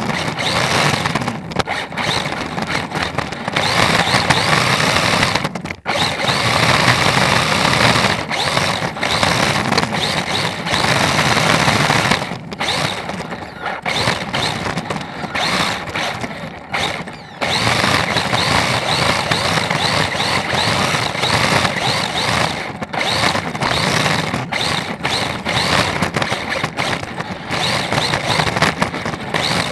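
Electric RC drift car heard from on board: its electric motor whines up in short repeated rises as the throttle is blipped, over a steady rushing noise of the running car, dropping away briefly several times, longest for a few seconds in the middle.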